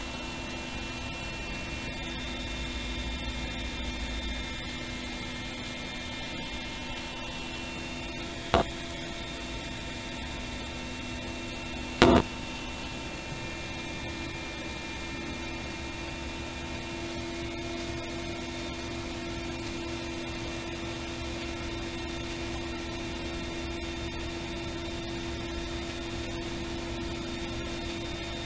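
Mil Mi-171E helicopter flying low, heard through an onboard camera as a steady mechanical hum with several whining tones. Two sharp clicks, the second about 12 seconds in and the loudest.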